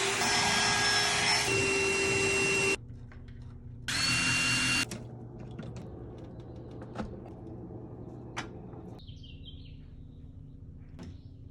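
Power drill running in two bursts, a long one of nearly three seconds and then, after a short pause, one of about a second, followed by faint scattered clicks and knocks.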